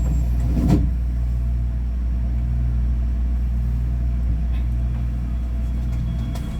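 Ui-Sinseol light rail train running between stations, heard from inside the car: a steady low rumble, with a single sharp knock about three-quarters of a second in.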